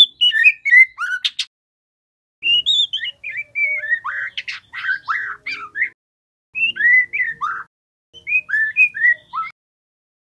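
Juvenile white-rumped shama singing: four quick phrases of sliding whistled and chattering notes, with short pauses between them.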